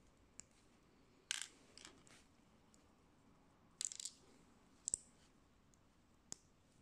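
Small plastic building bricks clicking and clattering as they are picked from a loose pile and pressed together. There are a few sharp clicks and short clatters at irregular intervals.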